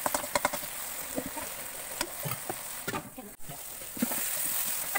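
Chopped greens, chillies and tomato sizzling as they fry in a metal wok, with a metal spoon scraping and clacking against the pan as they are stirred; a quick run of clacks about half a second in, and the sizzle briefly dips a little past three seconds.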